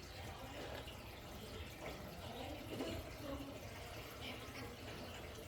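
Faint running water, like a tap, steady throughout.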